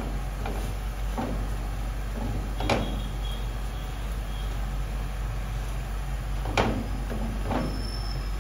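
Butter sizzling steadily under a cheese-filled French toast frying on very low heat in a nonstick pan, with about five short knocks as a silicone spatula presses the toast down, loudest a little under 3 seconds in and again past 6 seconds.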